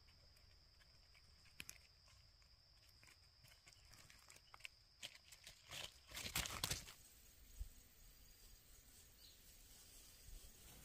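Faint crackling and rustling of dry leaf litter under a baby monkey's small footsteps, with scattered light clicks that build to a louder cluster about six seconds in as it passes close by.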